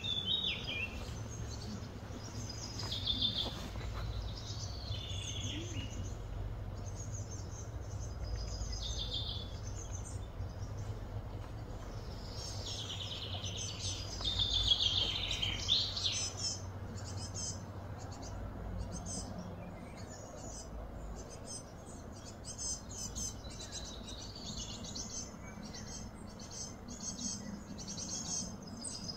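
Wild birds chirping and trilling in short high calls over a steady low rumble, with a denser run of quick high chirps in the second half.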